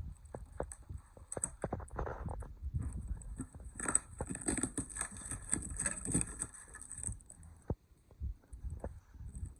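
A cardboard box and its packing being handled and opened: a string of irregular knocks and taps, with a denser stretch of scraping and rustling from about four to seven seconds in.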